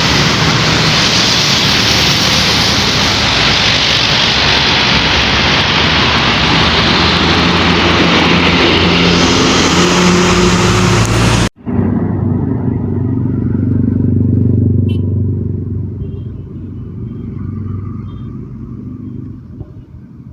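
Road vehicle noise: a loud, steady rush of engine and road noise that stops at a sudden cut about eleven seconds in. After the cut, a quieter engine runs with a low hum that gradually fades.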